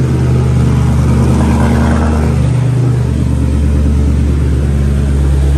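C7 Corvette's 6.2-litre V8 running loud and steady, its engine speed shifting slightly about halfway through.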